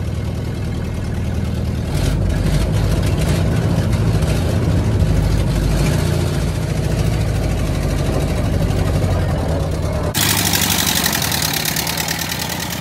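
1928 Ford Model A's flathead four-cylinder engine running, getting louder about two seconds in as the car moves off in reverse, heard from inside the cabin. About ten seconds in the sound changes to the engine heard from outside, with more hiss and less rumble.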